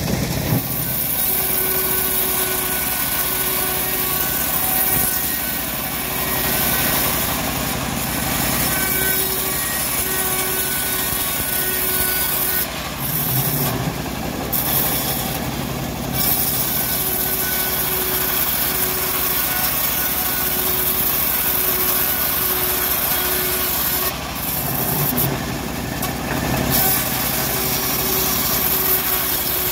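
Homemade bandsaw mill running and ripping a teak log, a steady loud sawing hiss over the machine's drone. The hiss drops briefly twice, about halfway through and again near the end.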